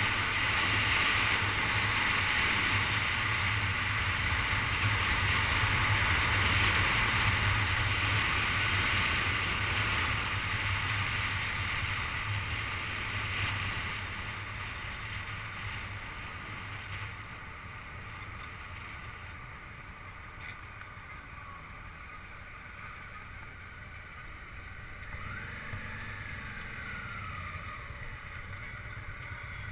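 Steady road and wind noise from a moving car: a low rumble with a hiss over it, easing off about halfway through.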